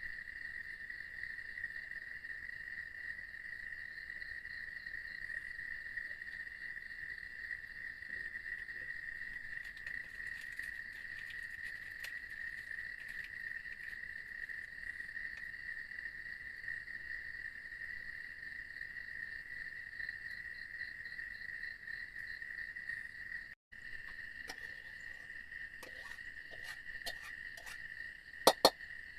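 Crickets chirring in a steady chorus, one unbroken high trill with no pause or change in pitch. A few sharp clicks or taps come near the end, two of them loud.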